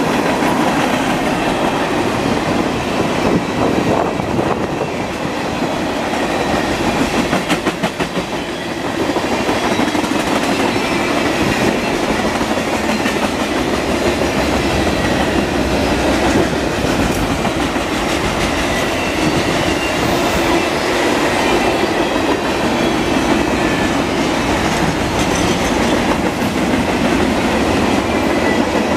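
Freight cars of a manifest train rolling past: a steady rumble of steel wheels on the rails, with the clickety-clack of wheels over rail joints, including a quick run of clicks about eight seconds in.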